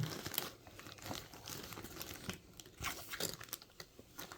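Crinkling and rustling of packaging and cloth as doll clothes are taken out and handled, in irregular bursts.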